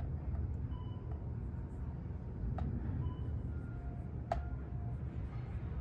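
Dry-erase marker writing on a whiteboard: short high squeaks as it strokes, and two sharp taps of the tip on the board, about two and a half and four and a half seconds in. Under it runs a steady low rumble.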